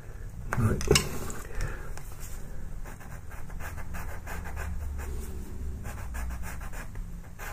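Pastel pencil scratching and rubbing across textured pastel paper in quick short strokes, a dry rasp repeated several times a second, over a steady low hum.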